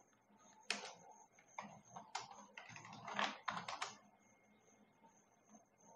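Computer keyboard typing: scattered key clicks, then a quick run of keystrokes in the middle, then a pause.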